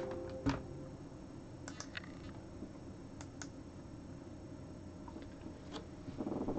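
Scattered light clicks and taps of a computer mouse and keyboard, the strongest single click about half a second in and a short cluster near the end. The tail of a fading musical chord dies away at the very start.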